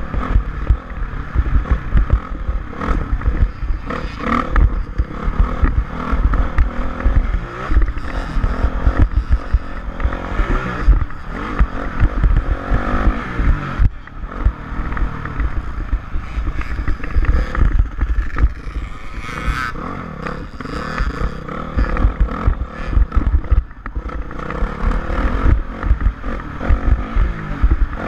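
Dirt bike engine running and revving up and down, recorded by a mounted action camera with heavy wind buffeting on its microphone.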